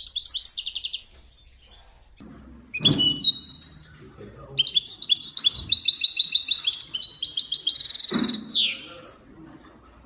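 Songbird chirping in quick high trills: a short burst at the start, a chirp about three seconds in, then a longer run of rapid trills ending in a falling note.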